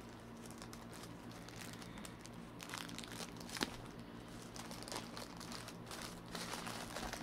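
Crinkly packaging being handled and pulled open, an irregular rustle with one sharper snap about three and a half seconds in.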